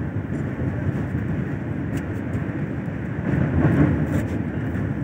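Train running across a steel girder bridge: a steady rumble of wheels on the rails.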